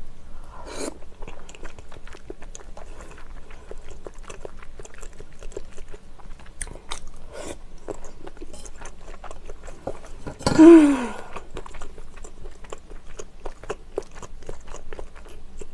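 Close-miked chewing of spicy tteokbokki rice cakes: a steady run of small wet mouth clicks and squishes. About ten seconds in, a brief louder sound from her mouth or voice, falling in pitch.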